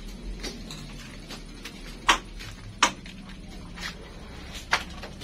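Footsteps on a concrete market floor, short sharp slaps about one a second, three of them louder, over a low steady background hum.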